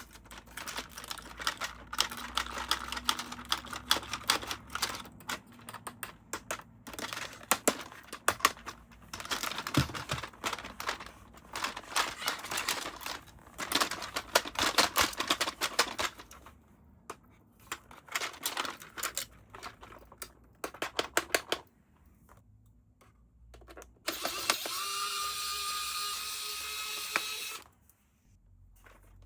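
Toy and packaging being handled: rapid clicks, taps and crinkles of plastic and cardboard come in bursts. Near the end there is about three seconds of steady hiss with a faint held tone.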